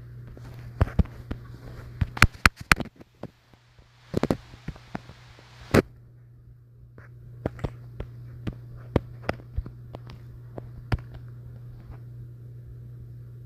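Scattered taps and clicks of handling on a phone's touchscreen and body, picked up by the phone's own microphone. There is a quick cluster of louder clicks about two seconds in, over a steady low hum.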